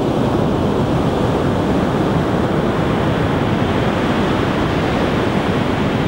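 Heavy storm surf crashing: large ocean waves breaking one after another and blending into a dense, steady wash of water noise with no single break standing out.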